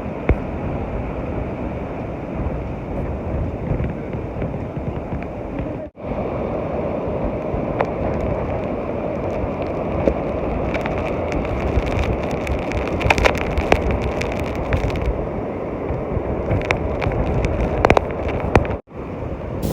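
Storm wind buffeting the microphone in a steady low rumble, with scattered sharp ticks from about ten seconds in, like raindrops hitting it. The sound cuts out briefly twice.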